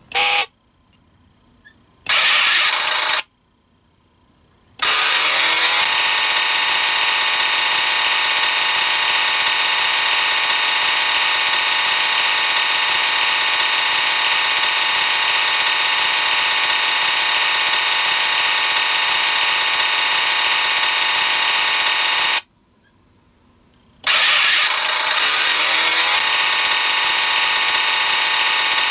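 A car sound effect played by an electronic sound-effect IC kit through its speaker: two short sounds, then an engine-start sound that rises in pitch and settles into a steady running drone. It cuts off suddenly about 22 seconds in and starts again, rising the same way, a second and a half later.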